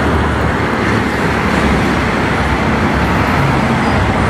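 Steady road traffic noise: a continuous rumble and hiss of passing vehicles on a busy street, with no single event standing out.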